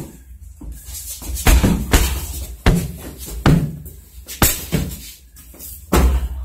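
Repeated thuds of blows landing on a person lying on the floor, about six in all at uneven intervals.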